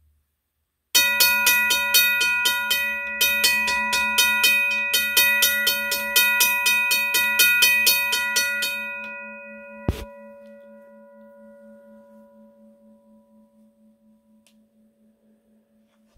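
Griswold / RACO 12-inch electric railroad crossing bell ringing: its hammer strikes the gong rapidly, about four times a second, for some eight seconds, a bright ring that sounds very good with its worn brass part replaced. The strikes then stop and the gong rings on, fading slowly, with a single sharp click about a second after the strikes stop.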